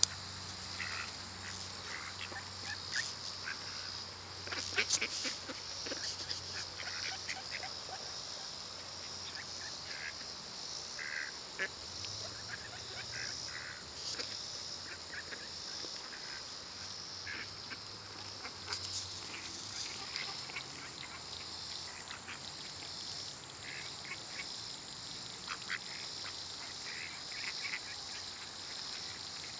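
A flock of mallard ducks feeding, with scattered short, soft quacks, a cluster of louder calls about five seconds in.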